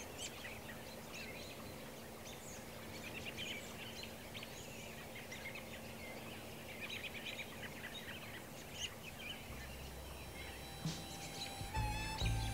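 Birds calling and chirping faintly over a quiet outdoor background. Music starts to fade in near the end.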